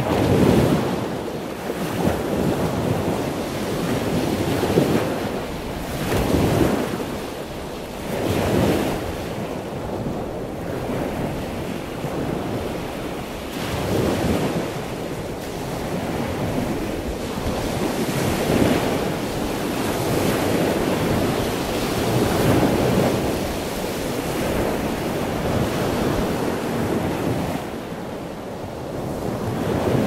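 Ocean waves washing in, a continuous rush of water that swells and ebbs every few seconds.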